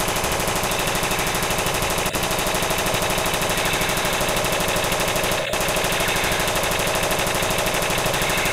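Electronic toy submachine gun firing its machine-gun sound effect: a rapid, steady rattle of shots, broken off for an instant about two seconds in and again about five and a half seconds in.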